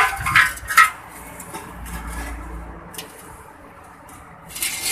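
Old engine oil pouring in a steady stream from the open sump drain into a metal drain pan, with a few metallic clinks in the first second.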